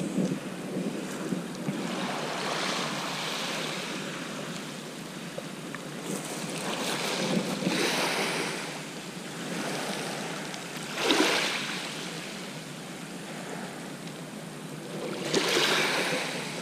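Sea waves breaking and washing up the shore, four surges about four seconds apart with a steady wash between them, the last two the loudest.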